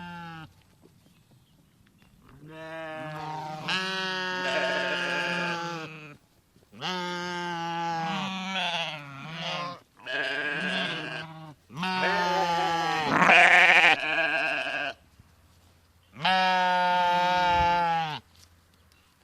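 Several sheep bleating: about five long, wavering bleats, some overlapping one another, with short pauses between them. The first begins a couple of seconds in.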